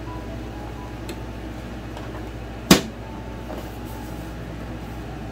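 A single sharp knock about two and a half seconds in, over a steady low hum, as fabric is handled at a sewing machine.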